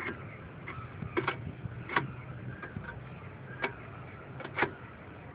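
Irregular sharp clicks and light taps, about eight over five seconds, from hands working on the antenna mast fittings while a line is pulled tight.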